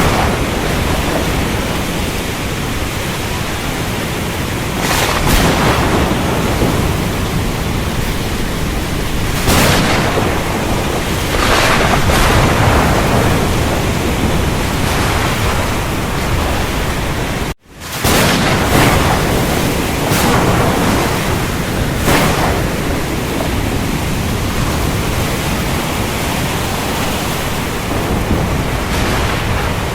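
Thunderstorm: a heavy, steady downpour of rain with several brief louder thunder cracks and low rumbles. The sound drops out for an instant just past halfway.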